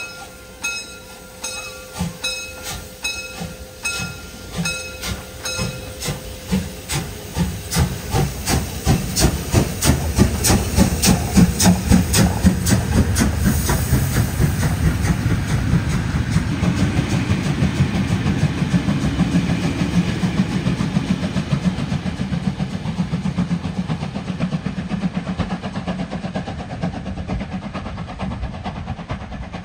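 Class 52.80 steam locomotive 52 8154-8, a two-cylinder 2-10-0, working hard as it pulls its train away. Its exhaust chuffs quicken from about one and a half a second to a fast run of beats as it passes close, loudest around ten seconds in. The passing coaches then give a steady rolling rumble that slowly fades.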